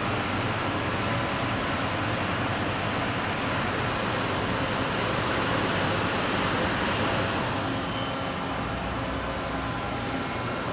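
Mori Seiki SL-25B CNC turning center running under power: a steady mechanical hum with an even hiss, swelling slightly about halfway through.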